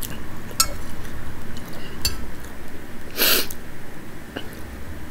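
Eating soup with a metal spoon: a few sharp clicks of the spoon against the bowl, and one short, loud breathy sound about three seconds in.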